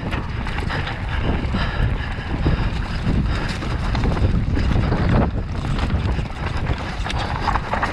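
Mountain bike riding fast down a dry, rocky trail: wind rushing over the action camera's microphone, with steady tyre rumble and scattered knocks and rattles from the bike over stones and small jumps.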